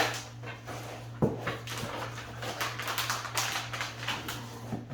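Large cardboard shipping box being opened and the clamps worked out of it: cardboard scraping and rustling, with a sharp knock at the start and a thump about a second in. A steady low hum runs underneath.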